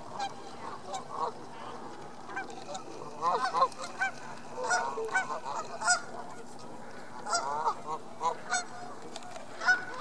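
Canada geese calling: a string of short honks, sparse at first and coming thick and fast from about three seconds in.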